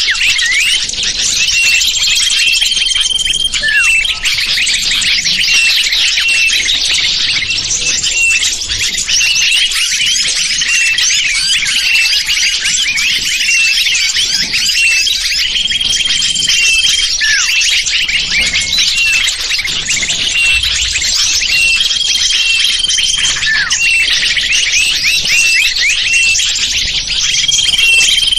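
Bird lure recording: a dense, continuous chorus of many small birds chirping and twittering, with a steady whistled note repeating about every six seconds.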